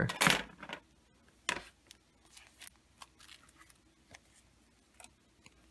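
Paper and plastic packaging being handled: wipe sachets and a card instruction sheet rustling as they are taken out of a box. A louder rustle at the start and another about a second and a half in, then soft scattered rustles and light ticks.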